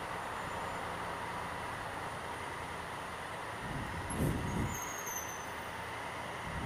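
Honda Africa Twin CRF1000L parallel-twin engine running at low speed in slow tunnel traffic, with steady traffic noise echoing off the tunnel walls. A brief louder surge comes about four seconds in.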